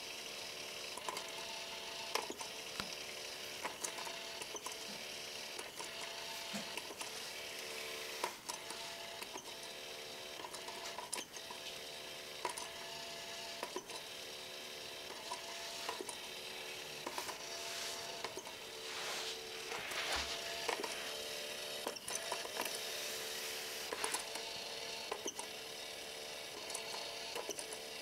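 Motorised pop-up cat toy running: a steady whir from its small motor and gears inside the plastic dome, with irregular clicks about once a second as the lure moves around under the holes.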